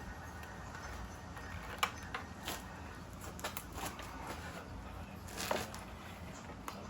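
Scattered clicks and clanks of hand tools and small parts on metal during engine disassembly, over a steady low hum. The two loudest knocks come about two seconds in and again about five and a half seconds in.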